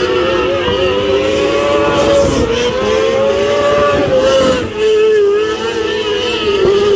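Engines of small winged dirt-track race cars running at speed on hot laps, their notes wavering up and down as they circle. One car passes close about four seconds in.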